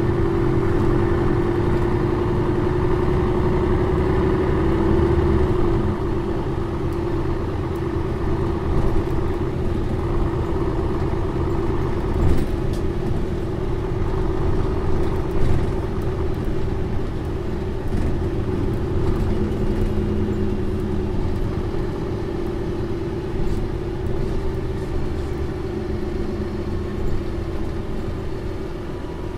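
Mercedes-Benz O405N2 city bus's six-cylinder diesel engine running steadily with a constant whine over the drone, easing off slightly about six seconds in. A few short knocks or rattles come through around the middle.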